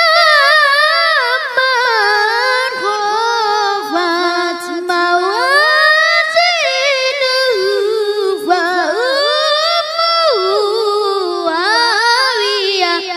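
A boy reciting the Quran in melodic tilawah style, his high voice holding long notes that waver and glide between pitches in ornamented runs.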